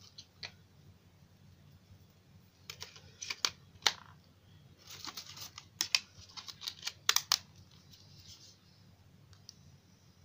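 Sharp plastic clicks and snaps as a JioPhone's battery and back cover are fitted and pressed into place by hand. The clicks come in two bunches, about three and about six seconds in.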